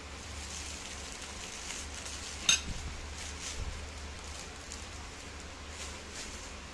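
Metal cutlery on a ceramic plate as more rice is heaped on: one sharp ringing clink about two and a half seconds in, then a few softer taps, over a steady low hum.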